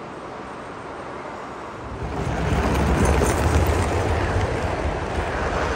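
Gauge 1 model freight train rolling past close by, its wheels on the rails making a low rumble. About two seconds in the sound grows much louder as the wagons pass right by.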